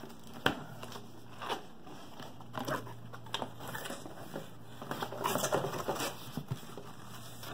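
Cardboard box being opened by hand: a sharp snap about half a second in as the top is pulled free, then irregular scraping and rustling of the cardboard flaps, busier near the end as hands reach in among paperwork and foam packing.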